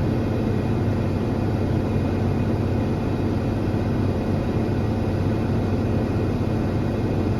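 Farm tractor engine running steadily under load, a continuous low drone.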